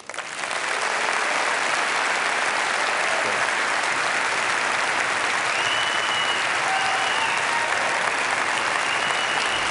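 A large auditorium audience applauding. The clapping swells up in the first second and then holds steady.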